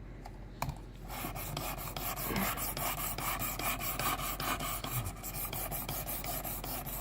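A 600-grit diamond sharpening stone on a guided rod being stroked rapidly back and forth along a knife edge, wetted with a little soapy water: a steady rasping scrape of several strokes a second, starting about a second in after a light click.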